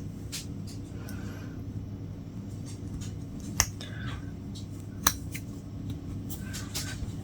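Latch hook tool working yarn into rug canvas: light clicks and soft rustles, with two sharper clicks about three and a half and five seconds in, over a steady low hum.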